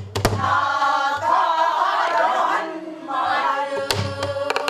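Pansori-style singing of a long, drawn-out phrase, accompanied by stick strokes on a Korean buk barrel drum: a pair of strokes just after the start and a cluster of strokes near the end.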